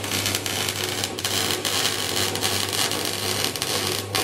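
Welding on a stainless steel exhaust pipe: a steady arc hiss with a low electrical hum underneath.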